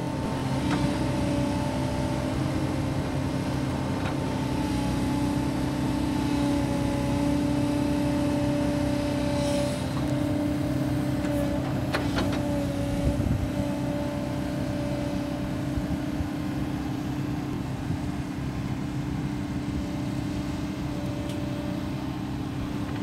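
Compact crawler excavator's diesel engine running steadily, with a higher whining tone from the hydraulics that shifts as the boom and bucket are raised and lowered. A couple of short clunks a little past the middle.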